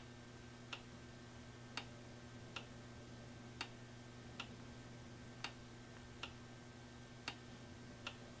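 Faint, regular clicking about once a second from the BMW R1100RT's ABS unit, which is trying to set itself with the ignition on, over a low steady hum.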